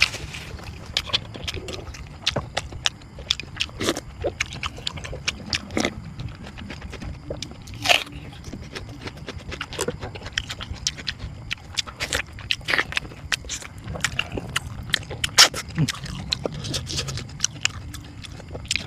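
Close-miked eating sounds: chewing and biting, with many sharp, irregular wet clicks and crunches and a few louder crunches.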